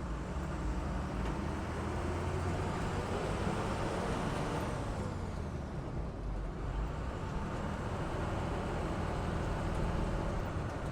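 Amphibious Duck tour vehicle driving on land, heard from onboard: a steady low engine rumble with road noise, and a rush of noise that swells and fades in the middle.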